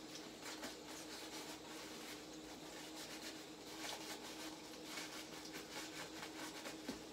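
Faint, irregular scrubbing and rubbing strokes of pans being washed by hand, over a steady low hum.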